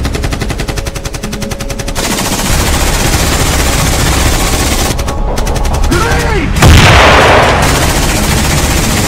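Rapid automatic gunfire in bursts, with a single louder blast about two-thirds of the way in.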